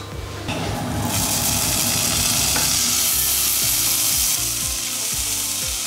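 Slices of raw pork belly sizzling in a hot frying pan as they are laid in with tongs. The sizzle starts about a second in and then goes on steadily.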